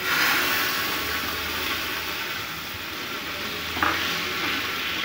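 Chopped garlic hitting hot cooking oil in a frying pan and sizzling steadily as it fries for a tempering (baghar), the sizzle starting suddenly as the garlic goes in. It is stirred with a spatula, which knocks against the pan once about four seconds in.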